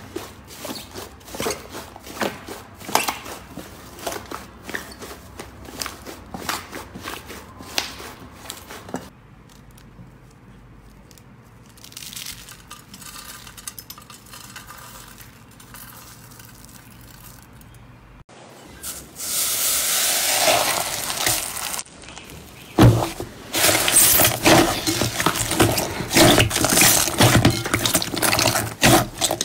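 Hands squeezing and kneading slime: dense crackling of fluffy foam slime, a quieter crumbling of dry flakes, then loud sticky pops and squelches as glossy slime is pressed down in a glass bowl near the end.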